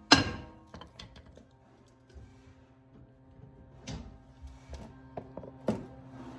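Metal struck hard with a ringing decay just after the start, then lighter knocks and clicks, and two more sharp strikes later on, typical of hammer blows on the hub during rear wheel bearing removal.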